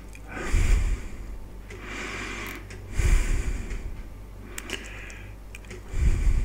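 A person breathing near the microphone inside the car, with a loud breath about every three seconds, over a steady low rumble from the moving car.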